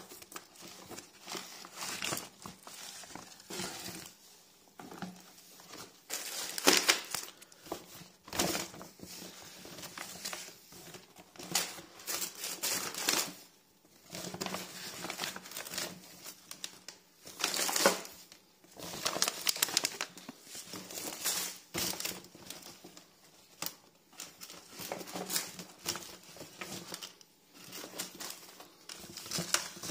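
Paper and plastic grocery bags crinkling and rustling as groceries are handled and lifted out, in irregular bursts with sharper crackles now and then.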